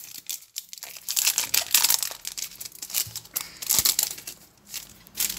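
Foil wrapper of a Pokémon card booster pack being crinkled and torn open by hand, crackling in irregular bursts.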